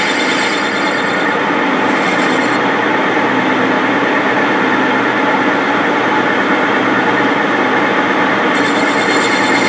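Engine lathe running while a boring tool takes a roughing cut in the bore of a cast motor bearing cap: a steady scraping hiss over the machine's running noise. The highest part of the hiss fades for most of the middle and returns near the end.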